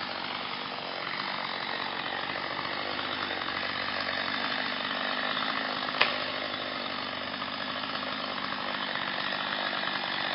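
Chainsaw running steadily under load, cutting into a tree trunk, with one sharp click about six seconds in.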